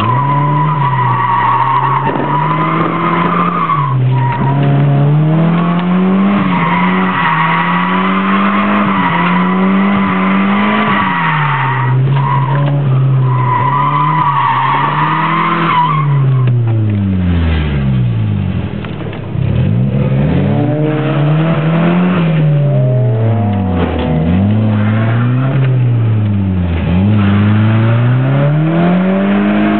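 Nissan 200SX (S13) heard from inside the cabin while drifting: the engine revs up and down over and over, with the tyres squealing in a steady, wavering screech through the first half. A little past halfway the revs drop away briefly, then rise and fall again in quicker swings.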